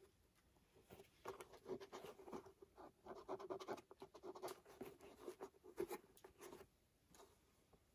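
Faint scratching and rustling of fingers handling and rubbing the leather upper of a dress shoe: a run of small scrapes that starts about a second in and stops near the end.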